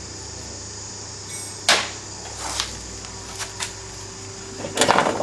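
Clicks and knocks of engine parts being handled: one sharp click about a second and a half in, a few lighter clicks, then a burst of louder clatter near the end, over a steady background hum.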